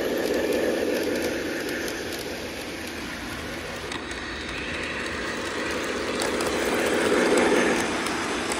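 Lionel O gauge train set running on three-rail track: a steady rumble of wheels and motor, growing louder about seven seconds in as the train passes close.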